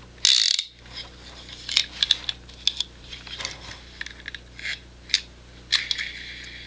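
Wey Mark II antique fly reel being handled and its spool worked by hand: a brief scrape near the start, then irregular light metallic clicks from the reel's pawl and gear mechanism.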